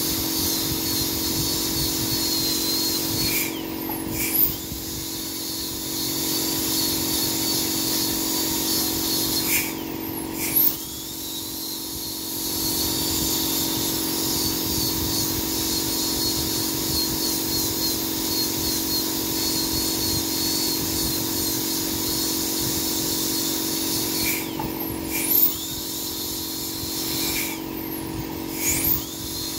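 High-speed dental air-turbine handpiece (dentist's drill) whining steadily as it grinds down a tooth for a porcelain crown. It cuts out briefly and spins back up four times.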